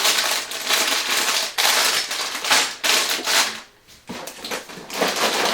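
Sealed plastic bags of LEGO pieces crinkling and rustling as they are handled and lifted out of the set box, the bricks inside clattering, with a short lull about four seconds in.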